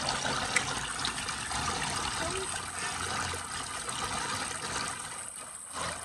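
Water from a toy water table's waterfall pattering and trickling steadily into the shallow basin below.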